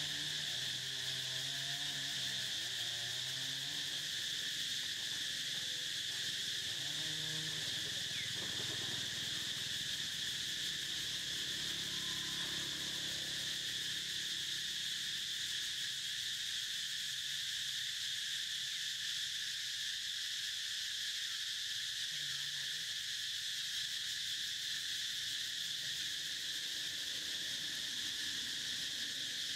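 Steady, high-pitched buzzing drone of an insect chorus, unbroken and even in level throughout.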